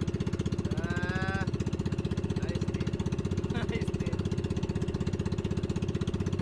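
Small boat engine running steadily with a fast, even chugging. A short voice sounds about a second in.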